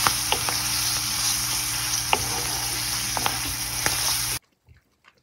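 False morel mushrooms and onion sizzling as they fry in oil in a pan, stirred with a spatula that clicks against the pan a few times. The sizzle cuts off abruptly near the end.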